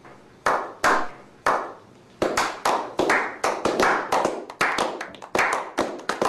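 A slow clap: single hand claps about twice a second. After about two seconds several more people join in and it thickens into a faster, overlapping group clap.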